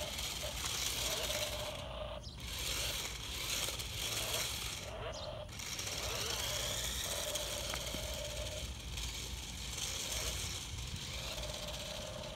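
Small electric RC stunt car running on asphalt: its motor whines in short runs of about a second, starting and stopping repeatedly as it is steered, over a steady rattle from the toy.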